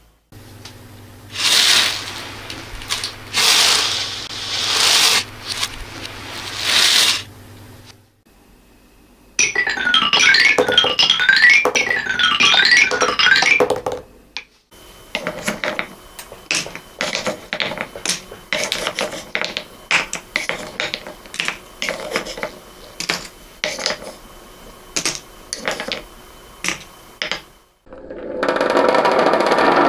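A series of small objects hitting things: first several rushes of pattering beads, then xylophone bars struck in quick runs of notes stepping down and back up in pitch, then a long stretch of rapid clicks and taps like marbles and small balls dropping and rolling, ending in a dense rattling rush.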